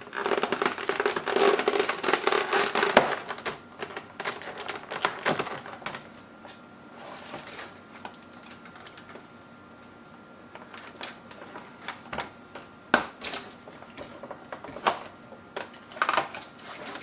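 Graphics card packaging and accessories being handled: dense crinkling and crackling for the first few seconds, then scattered clicks and taps.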